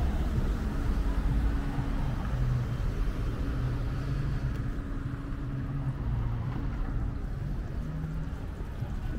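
City street traffic: a vehicle engine running close by, a low rumble with a faint steady hum over it.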